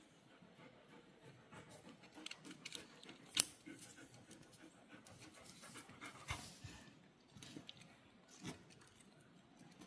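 A dog panting faintly, with small clicks and taps from fingers working wires into a ceramic thermocouple terminal block. One sharper click comes about three and a half seconds in.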